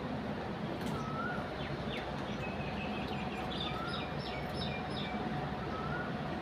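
Small birds chirping: a short rising-and-falling note that repeats every second or two, and a run of quick, higher notes in the middle. Under them runs a steady low rumble of outdoor background noise.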